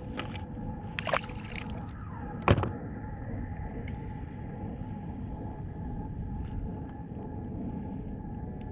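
Steady low rumble of water against the kayak, with two sharp knocks from handling in the boat, about a second in and a stronger one about two and a half seconds in.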